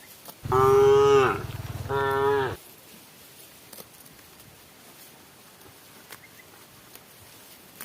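A cow mooing: one loud call of about two seconds, starting about half a second in and broken into two parts.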